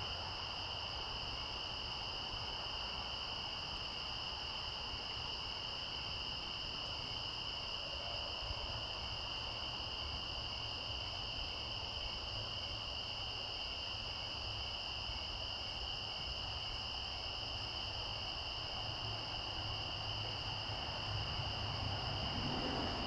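Insects trilling steadily and high, with a fainter, evenly pulsing chirp beneath them.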